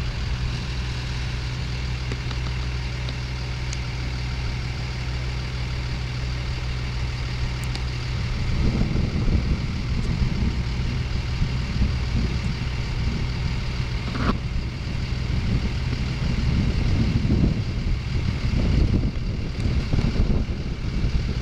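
A high-rail box truck's engine idling steadily; from about eight seconds in, an uneven low rumbling comes in on top of it.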